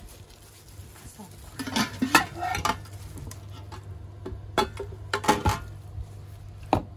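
Stainless steel pot lid and ladle clinking and knocking against a metal batter pot, in clusters about two seconds in, near five seconds and once near the end, over a steady low hum.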